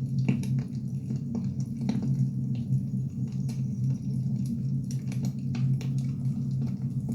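Burning firewood crackling: irregular sharp pops and snaps, some louder than others, over a steady low hum.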